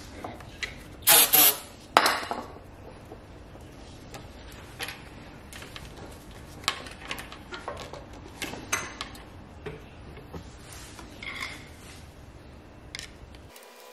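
Short hissing bursts from an aerosol spray can a little after a second in, then scattered clicks and metallic taps from a hose clamp, a rubber hose and a hand tool being worked onto an engine coolant pipe fitting.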